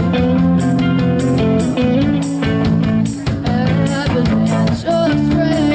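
A live rock band playing: distorted electric guitars and bass over a drum kit, with cymbals keeping a steady beat.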